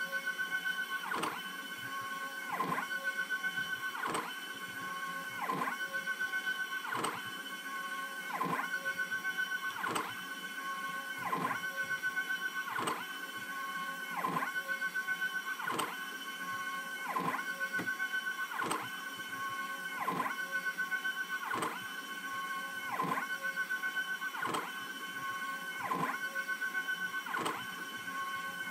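Stepper motors of a homemade CNC machine whining as the X and Z axes are jogged together along their lead screws. The tone steps and clicks about every one and a half seconds, in an even repeating pattern, as each move starts and stops.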